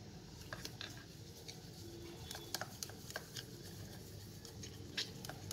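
Plastic spoon stirring sugar into egg white in a plastic bowl: faint, irregular clicks and scrapes of the spoon against the bowl.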